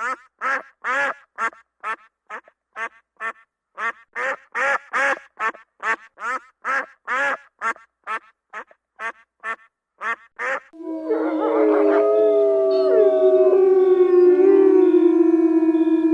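Canine yapping barks, short sharp yelps at about two to three a second, then, about eleven seconds in, several canines start howling together in long overlapping wavering howls at different pitches.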